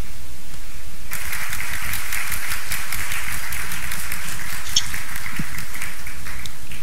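Audience applauding in a hall, the clapping starting about a second in and going on steadily, over a steady low hum.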